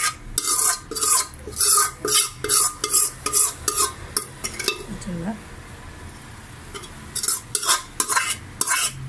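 Steel spoon scraping chicken masala out of a metal pot into a larger metal pot: a quick run of scrapes, about two a second. The scraping stops about halfway through and starts again near the end.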